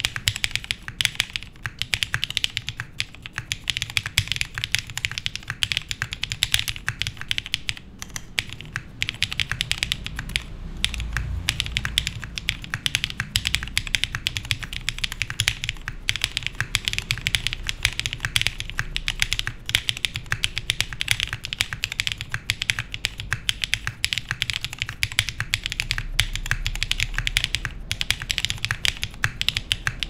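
Continuous fast typing on a custom mechanical keyboard, a MONOKEI x TGR Tomo SE with an aluminium plate, Black Cherry Pie linear switches lubed with Krytox 205g0, and DCS keycaps. The keystrokes run densely, with a brief lull about eight seconds in.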